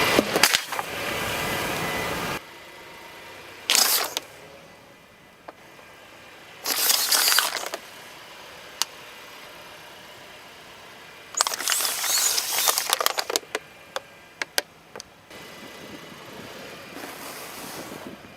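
Car tyres rolling over and crushing objects: several separate bursts of crunching and crackling, some with sharp cracks, over a low steady vehicle background.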